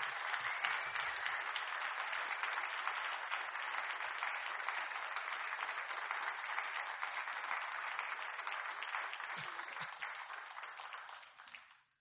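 Audience applauding at the end of a song, a steady sustained clapping that dies away near the end.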